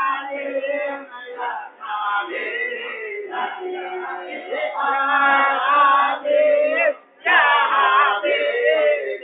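A group of men singing a nasyid (Islamic devotional song) together, several voices overlapping in long, wavering held notes. The singing breaks off briefly about seven seconds in.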